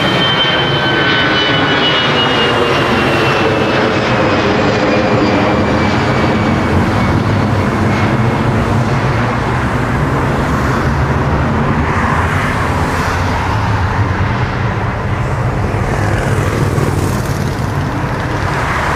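Airplane engines running loud and steady, a dense rush with a low drone beneath. A thin high whine falls slowly in pitch over the first several seconds.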